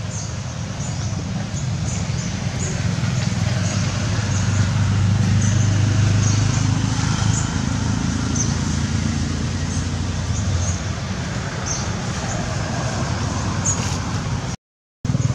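A motor vehicle's engine running nearby with a steady low rumble that swells for a few seconds partway through, with faint short high chirps over it. The sound cuts out for a split second near the end.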